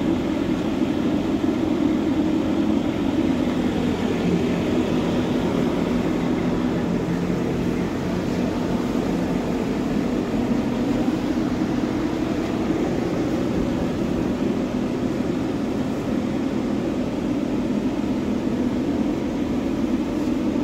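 Steady drone of a ventilation fan running, constant and unbroken throughout.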